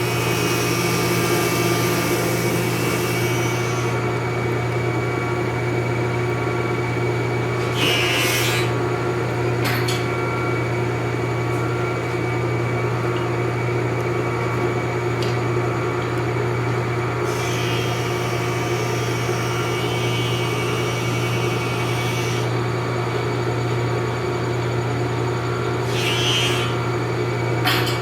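Hammer C3-31 combination machine running as a thickness planer: a steady motor and cutterhead hum, with louder hissing spells as a board is fed through the planer. The spells come in the first few seconds, briefly twice more, for several seconds mid-way, and again near the end.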